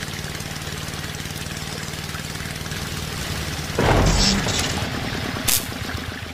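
Small electric motor humming steadily as it drives a belt-driven model water pump. About four seconds in, a sudden loud burst of noise comes as the motor's switch box shorts out in a flash, followed by a sharp crack about a second and a half later.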